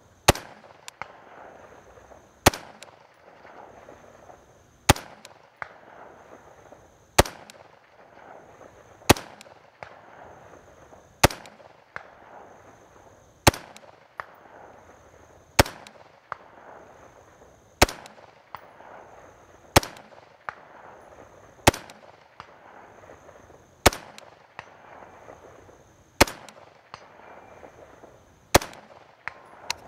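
Single rifle shots from a Fulton Armory M16A2-pattern AR-15 firing .223 55-grain rounds: fourteen slow, aimed shots about two seconds apart.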